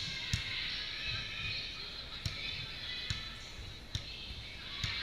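Volleyballs being struck and bouncing in a large indoor sports hall. Sharp smacks ring out at irregular intervals, the loudest about a third of a second in, over a steady background of voices.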